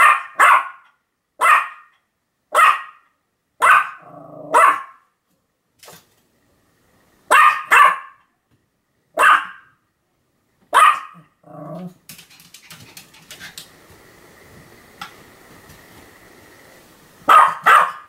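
A Pomeranian barking repeatedly: sharp barks, singly or in quick pairs, about one a second. A short low growl follows after about eleven seconds, then a few quieter seconds before a last double bark near the end.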